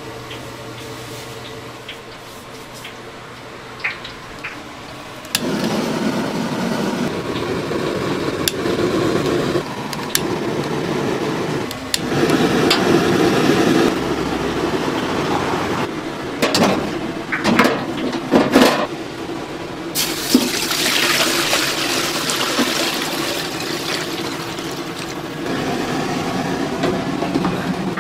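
Commercial gas ring burners in a stainless-steel street-food counter being lit and burning, a steady rushing noise that steps up about five seconds in and grows brighter around twenty seconds in, with scattered clicks and knocks.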